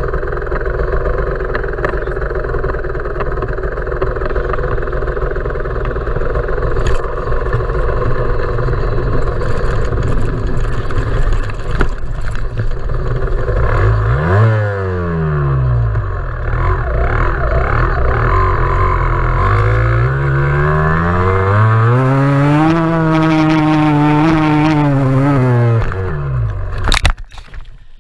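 Yamaha DT125 two-stroke single-cylinder dirt bike engine running steadily under way, then revving up and down in rising and falling sweeps in the second half. The engine sound drops away near the end, followed by a sharp loud clatter as the bike goes down in a crash.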